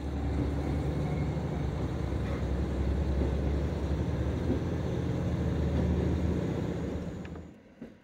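Diesel railcar running under power, heard from inside the car as a steady low engine drone with rolling noise. The sound drops away suddenly about seven seconds in.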